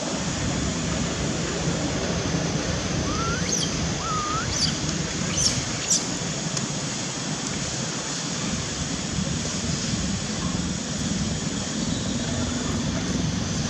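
Steady outdoor background noise with a few short, rising chirps and high squeaks about three to six seconds in.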